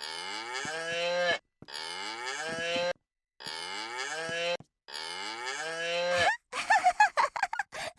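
A children's animal-sounds toy playing a cow's moo four times in a row, each moo a little over a second long with short gaps between. A quick run of short, choppy sounds follows near the end.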